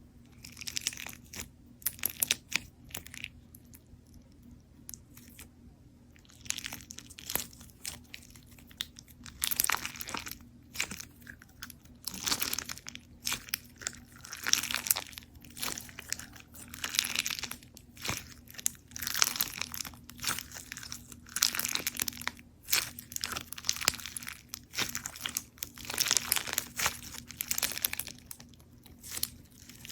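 Hands squeezing, poking and stretching slime: a run of irregular crackly noises, sparse for the first few seconds and then coming thick and fast.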